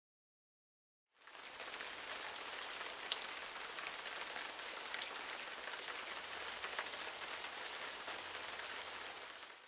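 Steady rain falling, a dense hiss with scattered drop ticks, fading in about a second in and cutting away at the end.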